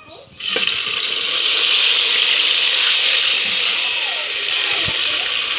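Food tipped into hot oil in a cooking pan, setting off a loud, steady sizzle that starts suddenly about half a second in. A single knock, like a utensil against the pan, comes near the end.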